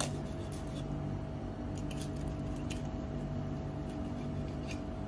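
Steady machine hum, with a few faint ticks of a knife as it cuts in around a fish's fins.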